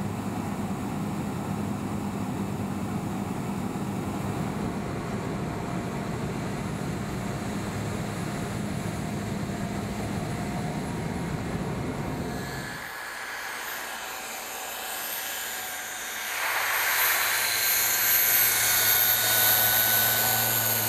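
Aircraft engine drone in flight, a steady noise with a low hum. About thirteen seconds in it changes abruptly to a high whine that grows louder toward the end, from a ski-equipped de Havilland Otter on the snow.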